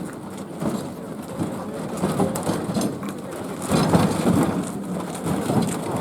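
A heavy wooden festival float's wheels rumbling and grinding on the road as it is hauled, with the voices of the crowd pulling it.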